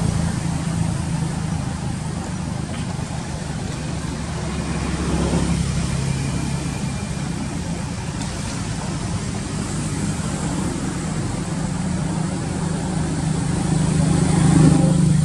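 A steady low engine hum with background noise, like a motor vehicle running, swelling a little near the end.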